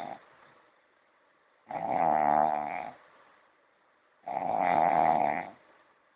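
Snoring in a steady rhythm: two long, pitched snores about two and a half seconds apart, with the end of an earlier snore fading at the start.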